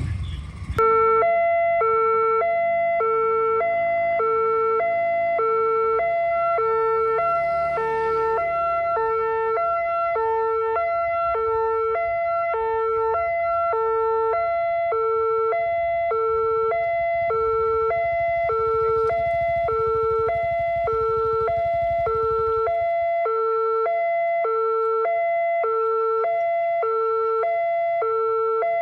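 Railway level-crossing barrier alarm switching on about a second in and then sounding steadily: an electronic siren alternating between a low note and a higher note, each about half a second long. It warns that a train is approaching and the crossing barrier is closing.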